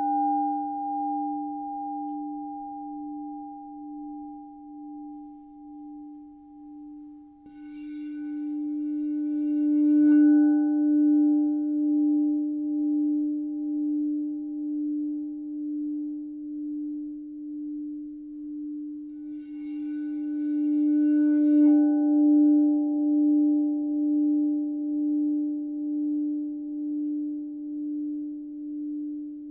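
An 8-inch tall Crystal Tones alchemy crystal singing bowl of pink Himalayan salt, tuned to D+20, rings with one steady low tone and a fainter higher overtone. The sound swells up twice as the bowl is played again, about eight and twenty seconds in, each time with a faint rough edge and bright high overtones.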